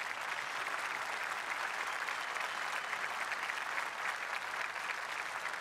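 Large audience applauding steadily, a dense wash of many hands clapping.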